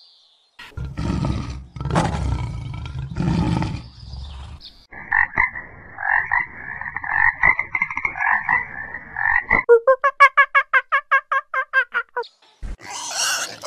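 Animal calls from a sound compilation in sequence. First come three long, low, rough calls. Then a rattling frog-like croaking runs for about five seconds, followed by a fast series of short rising pulses, about six a second, that stops about three-quarters of the way through.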